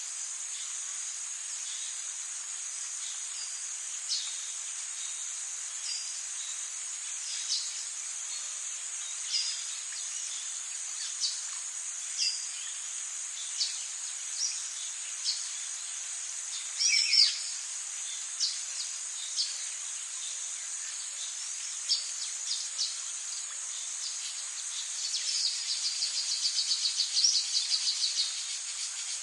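Forest ambience: a steady high-pitched insect drone under short bird chirps every second or two, with a louder falling bird call about halfway through and a fast trill near the end.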